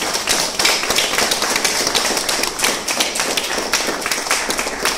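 Audience applauding, with many hands clapping.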